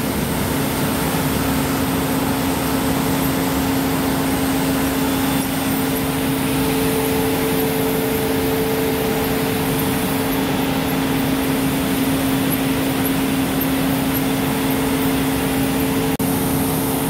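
Rice mill machinery running: motors, a belt conveyor and an elevator carrying parboiled paddy make a loud, even din with two steady humming tones.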